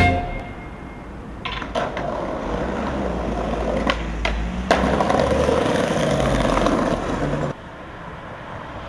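Skateboard wheels rolling on pavement with a steady rumble, broken by several sharp board clacks. The rolling cuts off abruptly near the end.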